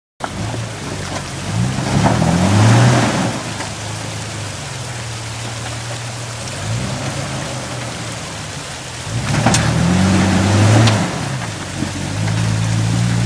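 Jeep Wrangler engine revving in several bursts as it crawls over rocks, with a sharp crack about nine and a half seconds in: the sound of an axle snapping under load.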